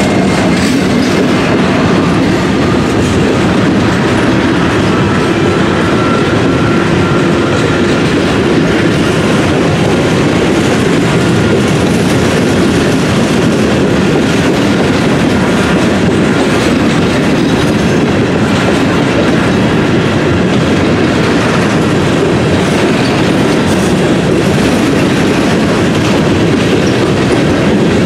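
Freight train's covered hopper cars rolling steadily past: loud wheel rumble with the clickety-clack of wheels over rail joints.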